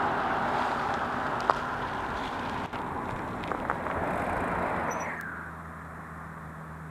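Car on the road, its engine and tyre noise fading away about five seconds in, leaving a faint low steady hum.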